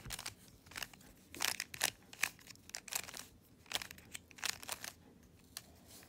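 A plastic 3x3 Rubik's cube being turned by hand through a corner-swapping algorithm (R' D R' U2 R D' R' U2 R2): a run of quick, irregular clicks and clacks as the layers snap round.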